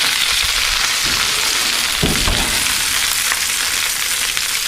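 Steady sizzling hiss from breaded chicken thighs hot from the oven on their baking pan, with a faint knock about two seconds in.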